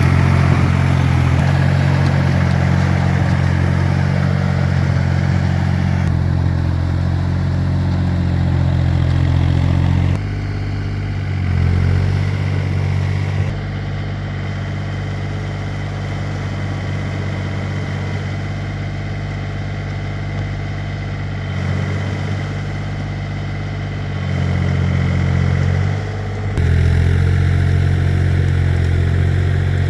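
Engine of a two-wheel tractor (tiller) running steadily, its pitch and loudness shifting abruptly several times.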